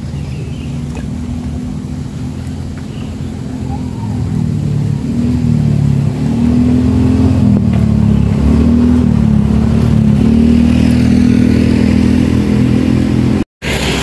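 A motor vehicle's engine running, getting louder about four seconds in, its pitch wavering up and down. The sound drops out for a moment near the end.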